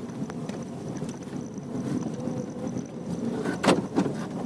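Tata Tiago cabin noise while driving on a cement road: a steady low drone of tyres and engine, with two sharp clicks near the end.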